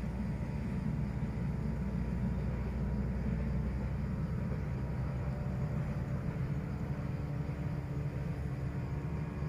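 Steady low rumble of a running vehicle engine, with a few faint steady hum tones above it.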